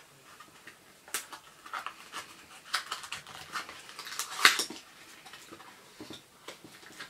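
A small cardboard box opened by hand: irregular scrapes and taps on the card, and rustling and crinkling of the paper packing inside, loudest about four and a half seconds in.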